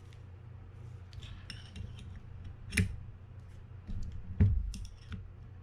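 Light clicks and small metallic clinks of fishing reel parts being handled and fitted by hand, with two sharper knocks, one nearly three seconds in and another about a second and a half later.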